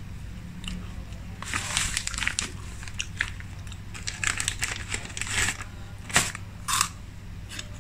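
Irregular crackly, crunching bursts from snack food being handled and eaten, in two clusters, with two sharp crackles near the end, over a steady low hum.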